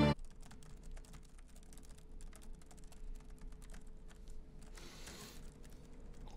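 Quiet, irregular key clicks of typing on a laptop keyboard over a faint steady hum, with a short soft rustle about five seconds in.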